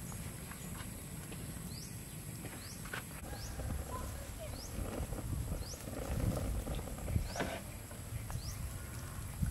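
Outdoor ambience: an animal's short high chirp repeats about once a second over a steady low rumble and a constant high hiss.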